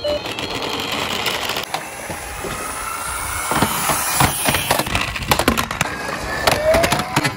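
Small die-cast Tomica toy cars rolling down a slope, a continuous rattling rumble with many quick clicks and knocks as they clatter along, and a short rising tone near the end.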